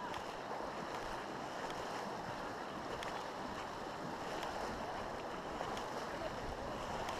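Shallow, fast-flowing river water rushing steadily.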